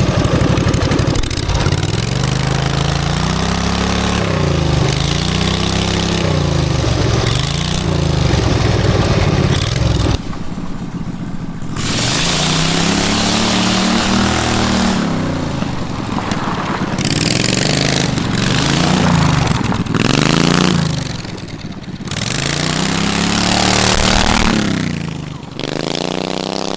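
Vanguard drift quad's engine revving up and down over and over as it is driven hard, its pitch rising and falling every couple of seconds. The revs drop briefly about ten seconds in, and near the end the engine winds down in one long falling note.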